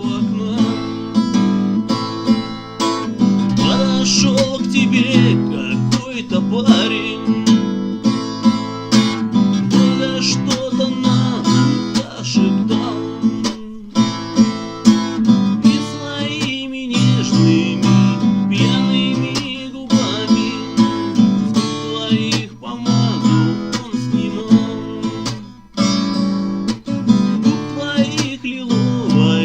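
Acoustic guitar strummed in a steady rhythm, playing an instrumental passage of a song between verses.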